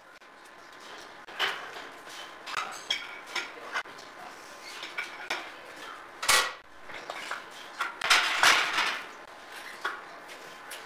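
Irregular metallic clinks and knocks from a steel power rack and its pull-up bar being worked during band-assisted pull-ups, with louder clatters about six and eight seconds in.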